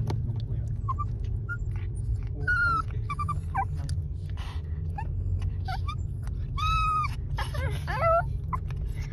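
Maltese dog whining in a string of short high calls, some bending up and down in pitch, over the steady low rumble of the car.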